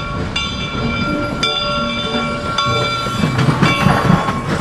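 Train sound effect: a horn sounding on held tones for about two and a half seconds over the continuous rumble of a running train.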